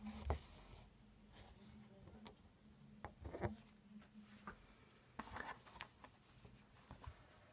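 Faint rustling, rubbing and light ticks of hands handling an embroidery hoop and its cotton fabric, with a soft knock just after the start. A faint low hum sits underneath.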